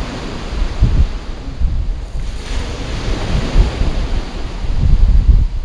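Wind gusting across the microphone in uneven low rumbles, over a steady wash of surf on a stony beach.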